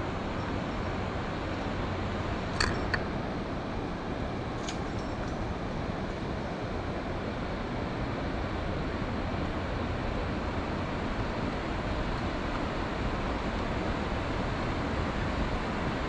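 Steady rushing of river water, with a few short clicks in the first five seconds.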